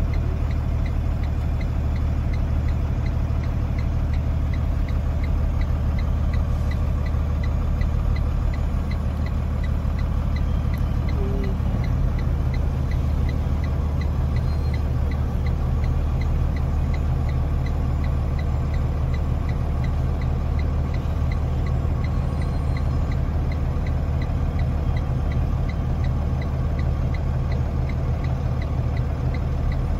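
Semi-truck diesel engine idling steadily, heard from inside the cab, with a faint regular ticking over it. Partway through, the low hum shifts slightly stronger.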